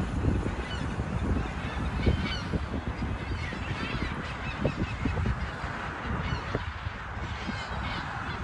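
Birds calling: short honking calls and scattered high chirps over a steady low rumble.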